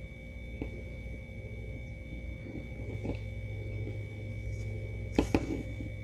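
Faint handling sounds of acrylic yarn and a crocheted swatch as the loose ends are woven in with a darning needle, over a steady low hum. Two short knocks come about five seconds in.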